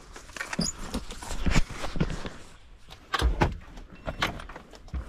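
Knocks and bumps from a pickup truck's open door and cab as someone climbs about inside, several separate thumps with rustling between them; the loudest come about one and a half and three seconds in.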